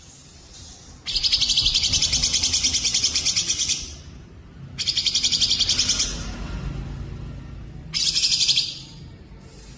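Recorded songbird song: three rapid, high-pitched trills, the first about 1 s in and lasting nearly 3 s, the second about 5 s in and shorter, and a brief one near the end.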